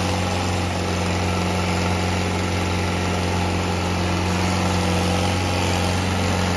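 Diesel engines of a Mahindra Arjun Ultra-1 tractor and a Sonalika tractor running at steady revs: a loud, even low drone that does not change.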